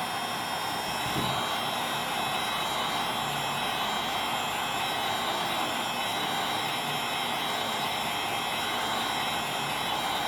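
Wagner heat gun set to 950 degrees, its fan blowing a steady rush of hot air while it heats the phone's back to soften the battery adhesive.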